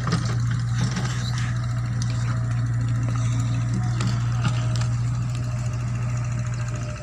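Mini excavator's diesel engine running at a steady speed, a constant low hum.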